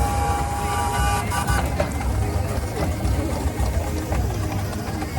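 Steam engine whistle blowing one steady high note for about a second and a half, over a continuous low rumble of engines running.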